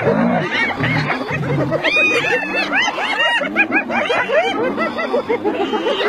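A clan of spotted hyenas giggling all together: many overlapping high, laugh-like yelps that rise and fall in pitch, with low growls under them during the first two seconds.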